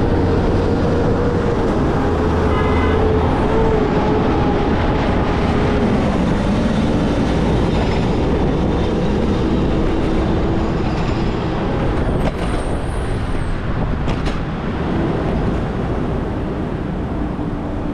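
City street traffic heard from a moving bicycle: the engines of cars and a refuse truck running alongside, under a steady rushing noise.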